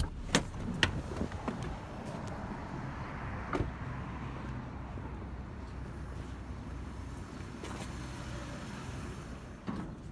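Steady low rumble of a vehicle running, with a few sharp clunks and rattles in the first couple of seconds, another about three and a half seconds in, and a knock near the end.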